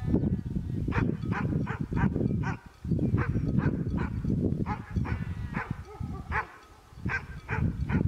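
A dog barking many times in quick runs of short, sharp barks, with a pause near the end. Under it is a heavy low rumble of wind on the microphone.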